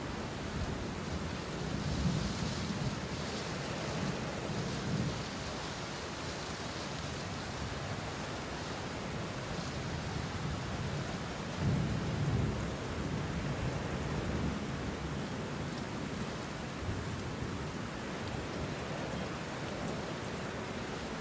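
Steady rain with low rolls of thunder, one rumble swelling a couple of seconds in and a stronger one about halfway through.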